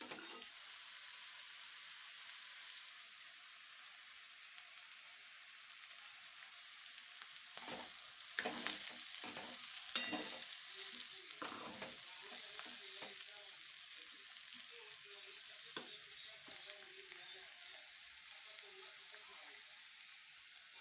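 Food frying and sizzling in a hot pan, a steady hiss. About halfway through a utensil works the pan for a few seconds with louder scraping and stirring strokes and a sharp click, followed by a few lighter taps.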